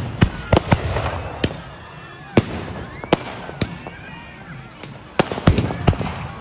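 Firecrackers bursting in sharp bangs: a quick string at the start, single bangs every half second to a second, then another rapid cluster about five seconds in. Faint crowd voices run underneath.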